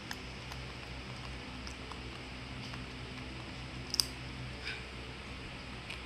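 Crisp crunching and crackling of a fried corn snack cone as a young monkey handles it and bites into it, with scattered sharp clicks and the loudest crunch about four seconds in, over a steady low hum.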